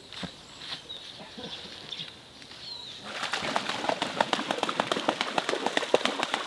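A few faint bird chirps and ticks, then about three seconds in a rapid, dense clatter of pigeon wings flapping that keeps going.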